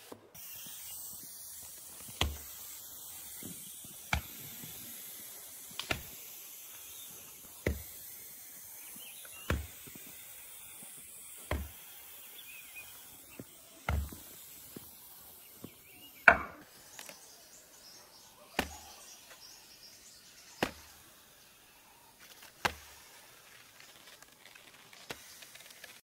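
A heavy ball dropping onto a tower of stacked bars and blocks, giving a sharp knock with a low thud about every two seconds, eleven or so in all, over a steady hiss.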